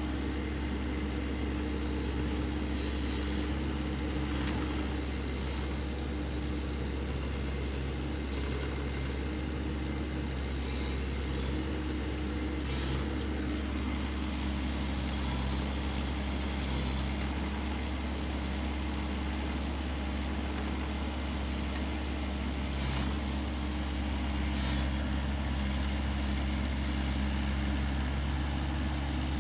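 Excavator engine running steadily at an even speed, with a deep steady hum, and a few faint knocks.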